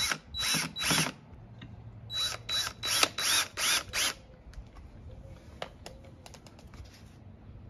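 Yellow DeWalt cordless drill driving wood screws through a pine board into a canvas stretcher frame, run in about nine short trigger bursts during the first four seconds. After that, only faint clicks and handling as the drill is set down.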